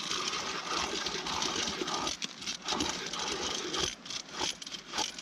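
Hand ice auger turning in a hole in the ice, its steel blades scraping and crunching through ice. The scraping is steady for about two seconds, then comes in shorter bursts.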